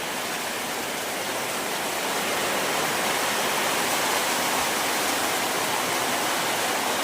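Steady rain falling, an even hiss that grows a little louder about two seconds in.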